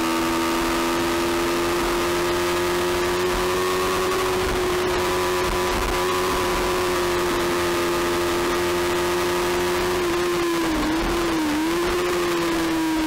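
Onboard sound of a 300-class supersport race motorcycle's engine held at high revs with a steady note, over wind noise on the microphone. Near the end the engine note dips briefly twice.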